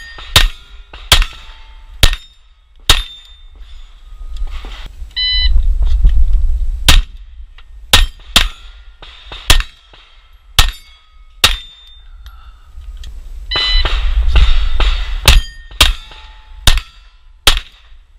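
9mm Glock 34 pistol fired in quick strings at steel plates, each shot followed by a ringing clang from the struck steel. An electronic shot-timer beep sounds about five seconds in and again near fourteen seconds, each starting a new string of about five to six shots.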